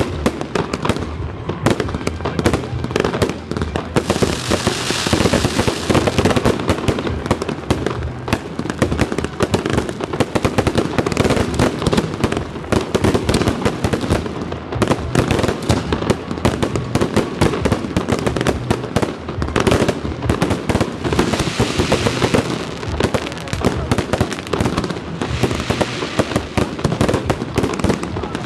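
Aerial fireworks display: a continuous rapid barrage of shell bursts and bangs with no pause, joined by stretches of higher crackling hiss around five seconds in and again in the last third.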